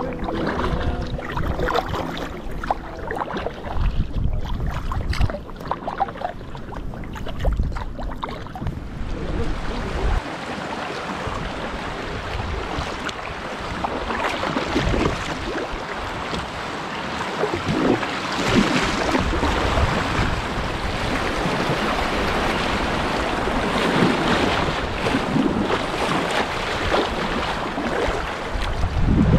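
River water rushing and splashing around a kayak in a shallow riffle, with paddle strokes in the water and wind buffeting the microphone. The rushing grows louder and fuller about ten seconds in.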